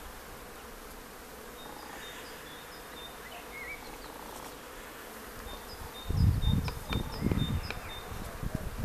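Honey bees buzzing in a steady hum, with short high chirps repeated over it. About six seconds in, gusts of cold wind start buffeting the microphone in loud low rumbles.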